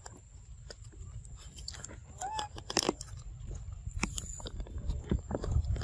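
Macaques chewing and handling food: scattered small clicks and crunches, with one short squeak that rises and falls about two seconds in.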